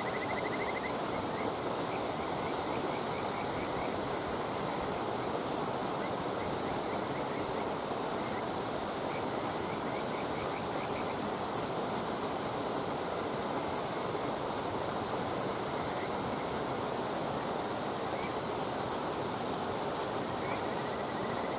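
Steady rushing noise like flowing water, with a short high chirp repeating about every second and a half, typical of a calling insect, and faint trills lower down. No fire crackle stands out.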